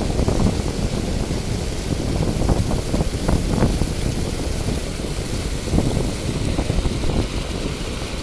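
Wind buffeting the microphone: a loud, uneven low rumble that surges in gusts.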